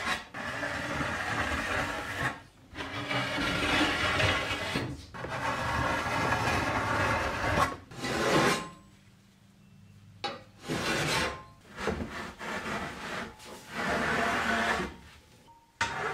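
Hand file rasping along the edge of a 3/8-inch 6061-T6 aluminum plate daggerboard to smooth away machining marks. It starts with long strokes of about two and a half seconds each, pauses briefly about nine seconds in, then goes on in shorter strokes.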